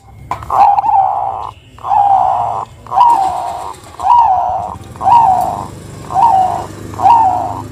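Zebra dove (perkutut) giving a string of rough, rolling 'kuwor' calls, about one a second, each note dipping in pitch.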